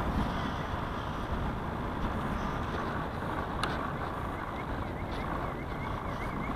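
Water rushing and splashing against the small hull of an IOM radio-controlled model yacht under sail, with wind buffeting the on-board action camera's microphone. A single sharp click comes about three and a half seconds in.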